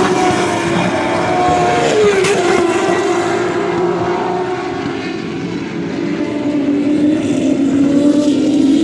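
Turismo Carretera race car engines running hard on track. The engine note drops about two seconds in, then holds a long steady note that sags slowly and rises again near the end.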